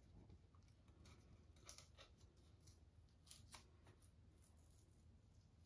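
Scissors snipping painter's tape, a few faint sharp snips and crinkles, most of them about two seconds in and again about three and a half seconds in.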